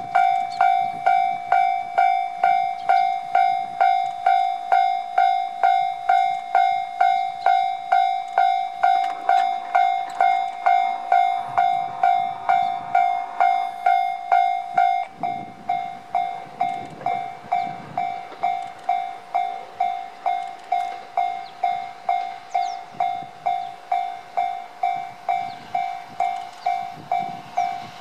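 Japanese railway level-crossing alarm ringing, a repeated electronic ding of one pitch about twice a second, starting suddenly and turning quieter about halfway through. A KiHa 125 diesel railcar approaches faintly underneath.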